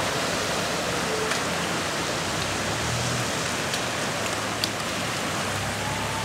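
Steady hiss of water on a flooded street after a heavy storm, with a low hum coming in about three seconds in.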